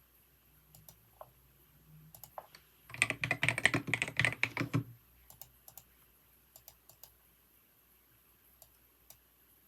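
Typing on a computer keyboard: a few scattered keystrokes, then a quick run of typing lasting about two seconds from about three seconds in, then occasional single key presses.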